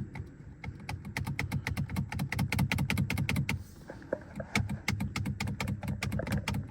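Newly fitted paddle shifters on a C7 Corvette's steering wheel being flicked over and over, a rapid train of sharp clicks, several a second, over a low steady rumble.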